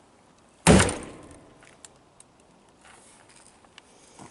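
A single heavy axe blow about two-thirds of a second in, striking the steel plates of a coat of plates armour laid on a wooden stump, with a short ring-out afterwards. The blow cuts through the plate and its leather, shearing rivets.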